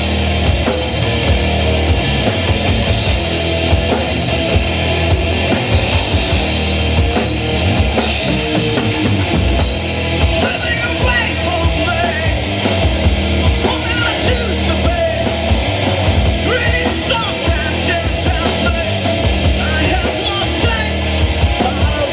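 A rock band playing live, with a drum kit keeping a steady, busy beat under electric guitars. From about halfway through, a wavering lead melody rises over the band.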